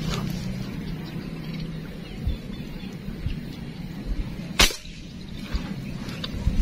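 A single air rifle shot about four and a half seconds in: one short, sharp crack.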